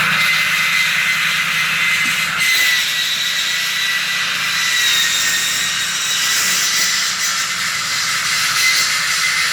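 Diamond-blade concrete saw cutting a concrete floor: a loud, steady high hiss with a thin whine running through it. A lower hum drops away about two and a half seconds in.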